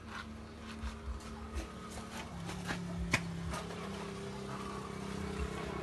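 A steady low machine hum that shifts in pitch about two seconds in, with scattered clicks and taps and one sharper tap about three seconds in.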